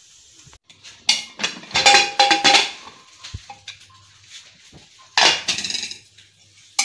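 Aluminium pressure cooker being opened: the metal lid clanks and clatters against the pot, with a brief ringing. A second clatter comes about five seconds in.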